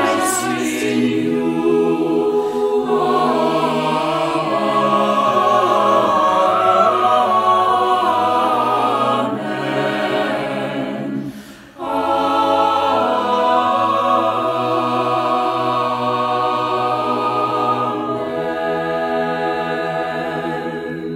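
Mixed choir of men and women singing a cappella, separately recorded voices mixed into one virtual choir, in long held chords. The sound breaks off briefly about halfway through, then returns on another long sustained chord that softens toward the end.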